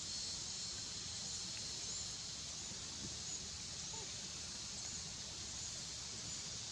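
Outdoor background ambience: a steady hiss with faint, high-pitched chirps repeating every half second or so.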